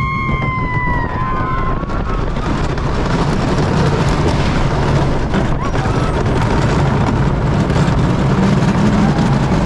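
A wooden roller coaster train running along its track: a steady heavy rumble and rattle of the wheels, with wind buffeting the ride-mounted camera's microphone. A rider's long high-pitched scream sounds over it for about the first second and a half.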